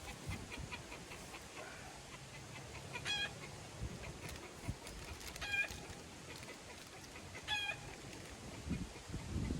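Chicken calling three short times, about two seconds apart, over faint outdoor background noise.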